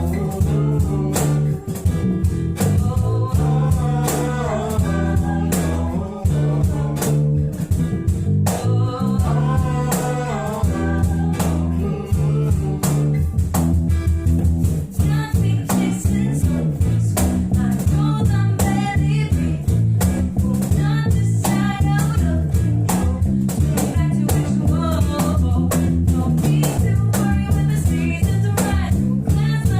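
Acoustic performance of a song: strummed acoustic guitar with a voice singing over it.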